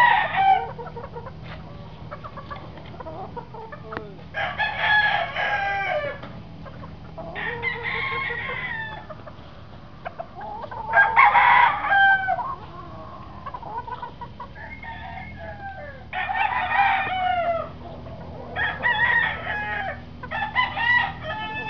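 Roosters crowing, about six crows spaced a few seconds apart.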